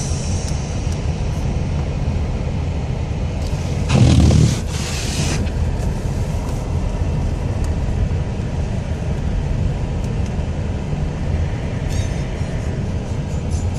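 Wind buffeting the microphone in a snow storm as a steady low rumble, with one stronger gust about four seconds in.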